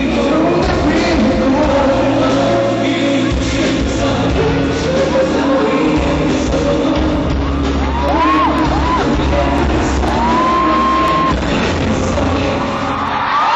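Loud live pop concert music recorded from the audience: a band with singing over a steady low beat, with a few high sliding vocal cries partway through and shouts from the crowd.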